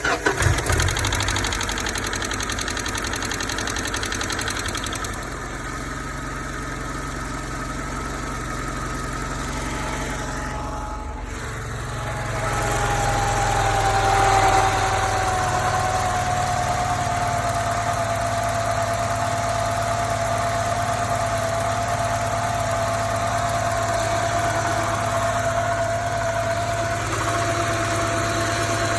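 Car engine idling after a cylinder-head rebuild, now running evenly without its earlier heavy knock; the owner notes only that the hydraulic lash adjusters tick slightly when hot. About twelve seconds in the engine note rises for a few seconds, with a whine that settles slightly lower in pitch, then it idles steadily again.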